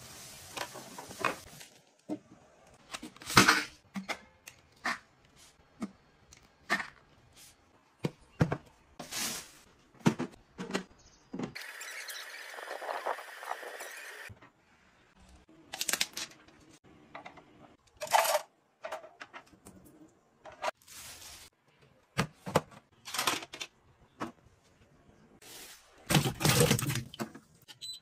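Clicks, knocks and light rattles of plastic kitchen gadgets being handled and operated, with a noisy rush lasting about three seconds midway.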